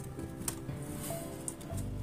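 Soft background music with held, sustained notes, and one brief click about half a second in.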